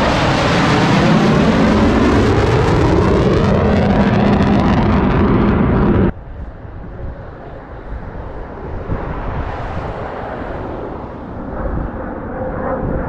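Two F-35 fighter jets' Pratt & Whitney F135 turbofans roaring as the pair passes low overhead, with whooshing tones sweeping down and up in pitch. The roar cuts off suddenly about six seconds in, giving way to a quieter, distant jet rumble that swells again near the end.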